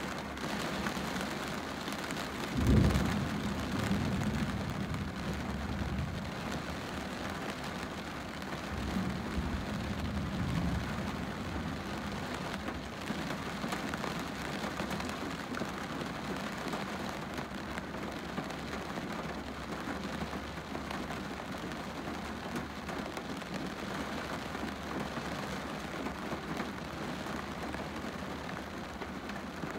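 Steady rain falling on a car's windscreen, heard from inside the car. About three seconds in comes a loud low rumble of thunder, and a weaker rumble follows around nine to eleven seconds.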